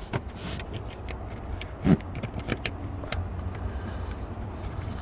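Small clicks and taps of a screwdriver and screws being handled and fitted on a steering column, with one louder knock about two seconds in, over a steady low rumble.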